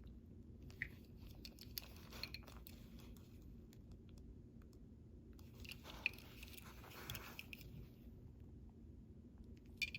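Faint handling noise: scattered light clicks and soft crinkly rustling as small die-cast toy cars and their packaging are handled, over a steady low room hum.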